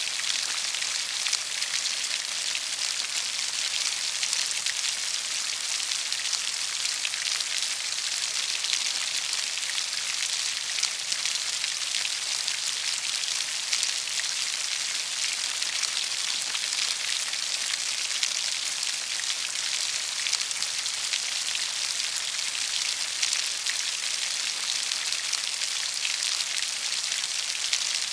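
Steady rain pattering, an even hiss of many fine drops with no thunder or breaks.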